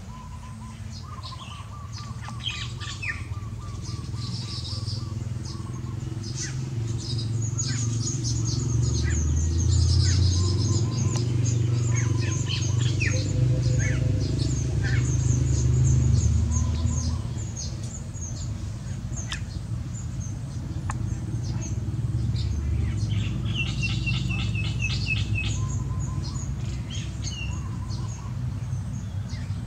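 Baya weavers chirping and chattering in many short high notes and quick twittering runs, with a brief trill early on. Underneath runs a steady low rumble that swells in the middle and then eases off.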